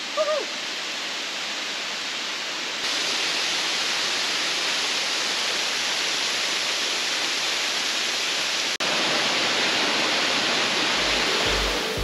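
Waterfall rushing with a steady roar of falling water from a tall, thin cascade dropping into a rocky pool. The rush gets louder about three seconds in and breaks off for an instant near nine seconds. Music with a low beat starts near the end.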